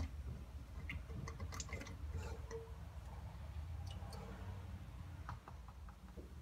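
Faint scattered clicks and wet, squishy handling noises as the oily metal oil strainer is worked loose from the bottom of a 1600cc air-cooled Volkswagen Beetle engine, over a low steady hum.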